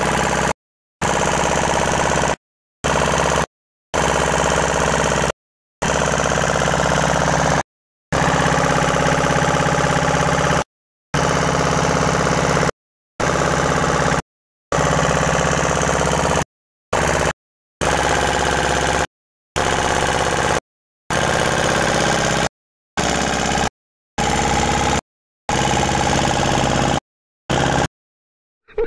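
Fishing boat's engine running steadily under way, a low even drone with a hum. The sound is repeatedly cut by brief dropouts to silence.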